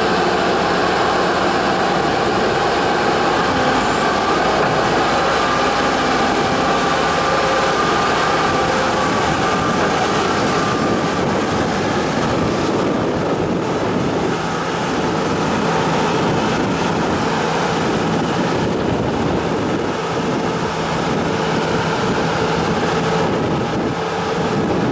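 Diesel engine of an excavator on a dredging barge running steadily under load as its hydraulic arm pushes the bucket through the water to move the barge. The engine's tone shifts lower about halfway through.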